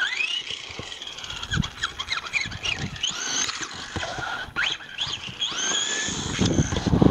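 Brushless electric motor of an RC buggy, an Arrma 2050 kV motor on a 4S LiPo supply, whining up and down in pitch with quick throttle bursts as the buggy drives. A louder low rumble comes in about six seconds in.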